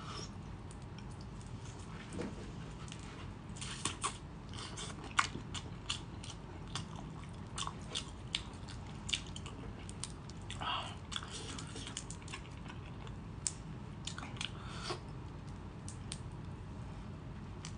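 Close-up eating sounds of raw marinated shrimp: scattered sharp clicks and crackles as the shells are peeled and bitten, with wet sucking and chewing.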